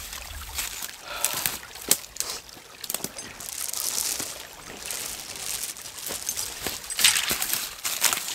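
Footsteps crunching and rustling through dry leaves and brush, with scattered twig snaps and clicks, over a small creek trickling.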